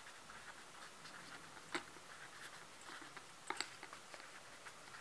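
Pen writing on paper: faint scratching strokes, with a light tap about a third of the way in and two more about two-thirds of the way in.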